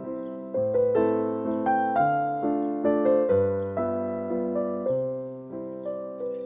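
Background piano music: a gentle melody over chords, with notes struck about twice a second and each left to fade.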